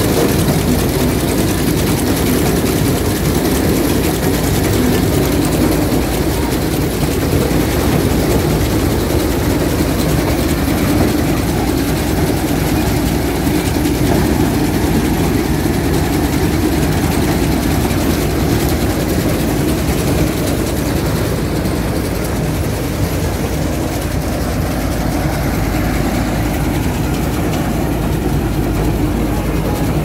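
Combine harvester fitted with a corn header, its engine and machinery running steadily and loudly without change.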